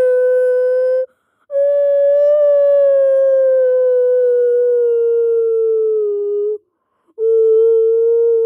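A person humming long held notes as a mock emergency alert tone, the pitch wavering and sagging slowly downward. Two short gaps for breath, about a second in and near six and a half seconds, split it into three notes.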